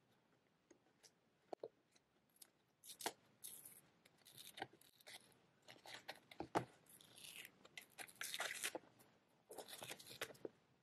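Paper sticker being peeled off a hardcover notebook's cover and tearing as it comes away: a few light clicks and taps, then several seconds of crackly ripping and paper rustle.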